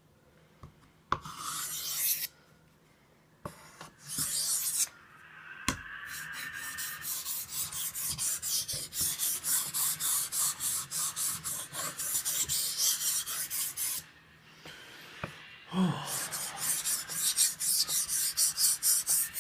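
Steel knife blade stroked back and forth on a wet King Japanese water stone, rasping as it is sharpened. A few separate strokes come first, then a steady run at about two to three strokes a second. Near the end the strokes break off briefly, there is a knock, and they pick up again.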